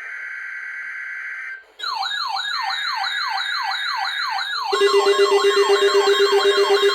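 NOAA Weather Radio SAME header data burst: a steady buzzy digital screech lasting about a second and a half, marking the weekly test. It is followed by a rapidly repeating siren-like alert sweep, about three falls a second. About five seconds in, a steady tone and a pulsing lower beep join in and everything gets louder, as the test sets the alert tones going.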